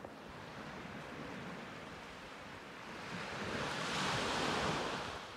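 Small waves washing onto a sandy shore: a steady wash of surf that swells into a louder surge about three seconds in and eases off near the end.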